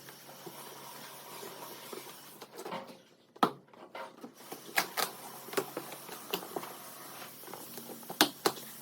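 Handling noises from unpacking a stroller: a continuous rustle with several sharp clicks and knocks spread through, the loudest about three and a half seconds in and near the end.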